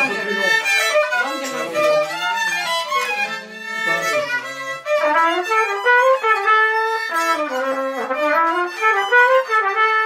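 Two fiddles playing a slow Polish village folk tune together, with a trumpet playing along in the second half.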